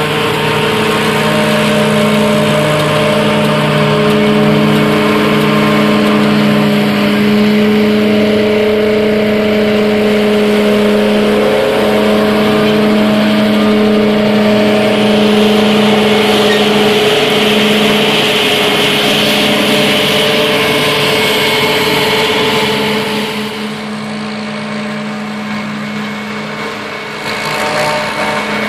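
New Holland FR9060 forage harvester running under load, chopping rye and blowing it through its spout into a trailer, a steady loud machine drone with a rushing hiss, mixed with the engine of the New Holland tractor driving alongside. The sound drops for a few seconds near the end.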